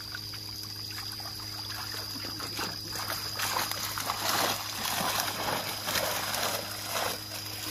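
Black tilapia thrashing in a lifted net, splashing water in irregular bursts that start about two seconds in and are heaviest in the middle, with a steady hum underneath.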